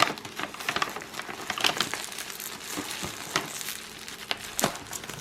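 Plant shipping wrap crinkling and crackling as it is handled and cut open, with many short sharp clicks through it.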